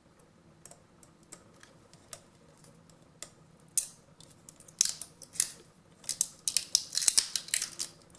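Protective plastic film being picked at and peeled off an airbrush compressor's pressure gauge: a few light clicks, then rapid crackling and crinkling from about halfway through.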